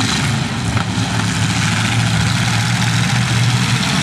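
Demolition derby car engines running loudly and steadily, with a broad noisy hiss over them.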